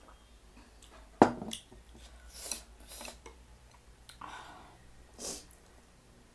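Close-miked eating sounds: a sharp click about a second in, the loudest sound, then about four short noisy sounds of food and dishes being handled and eaten.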